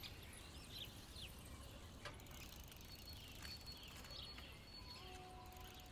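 Near silence: faint outdoor ambience with a low steady hum, a few faint distant bird chirps and a single soft tick about two seconds in.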